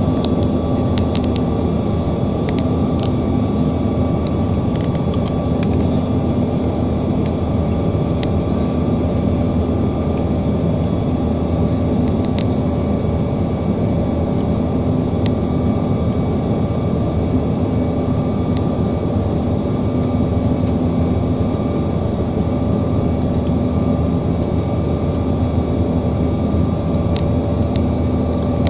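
Airliner cabin noise: a steady engine and airflow drone with constant humming tones, unchanging throughout.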